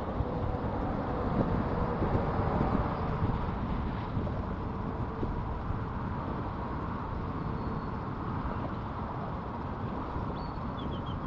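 Wind buffeting the microphone: a steady, uneven low rumble with a hiss above it.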